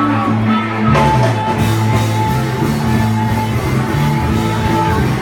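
Loud rock music with singing, changing abruptly about a second in.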